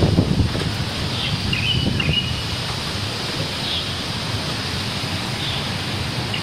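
Steady typhoon wind, with a low gust buffeting the microphone at the start. A bird chirps twice about one and a half to two seconds in.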